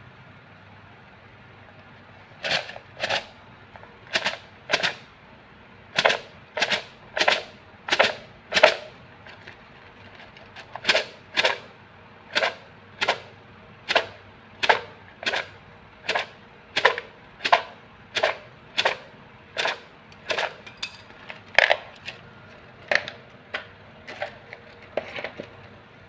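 A cylinder of Vietnamese fortune sticks (ống xăm) being shaken for a divination, the sticks clattering against each other and the cup in sharp rhythmic strokes. The strokes start about two seconds in, at a bit under two a second, and stop just before the end.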